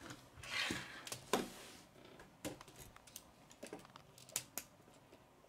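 K'nex plastic pieces clicking and rattling as they are handled and snapped together, with a short rustle near the start. The sharpest click comes just over a second in, and a few more follow at irregular intervals.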